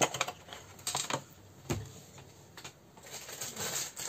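Clear plastic bag of moss crinkling and rustling with scattered sharp clicks as it is handled and put down on a cutting mat, with a soft knock a little under two seconds in.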